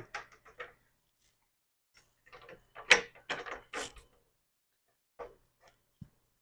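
Parts of a Vision V70 reptile rack knocking and clicking as a piece is fitted down over the rack's poles. The knocks are irregular, with a louder cluster about three seconds in.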